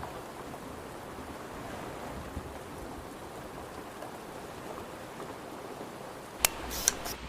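Steady hiss of rushing water. A sharp click comes near the end, followed by a brief clatter.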